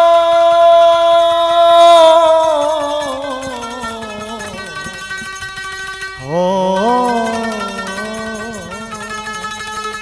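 Devotional bhajan music: a long held sung note that slides down and fades away, then a new wavering melodic phrase that rises in about six seconds in.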